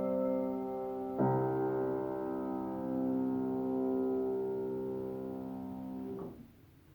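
Piano playing slow sustained chords: a chord rings on, then a new chord is struck about a second in and held as it slowly fades, and it is damped off suddenly about six seconds in.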